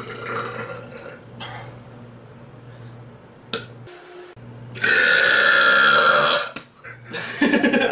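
A man belching: one long, loud belch of about a second and a half, then a shorter, lower belch near the end.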